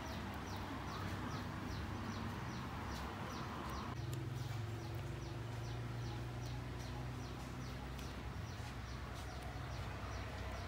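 A bird chirping over and over: short, high, falling chirps at an even pace of about two or three a second, over a steady low hum.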